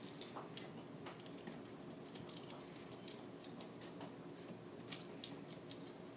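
Faint, irregular small clicks and ticks of a screwdriver and wires being worked at the terminal screws of a GFCI receptacle, over a low steady hum.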